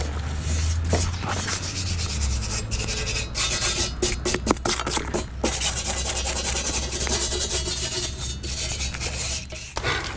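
Hand tool scrubbing and scraping over a cast iron bench end in quick back-and-forth strokes, a rasping metal-on-metal sound.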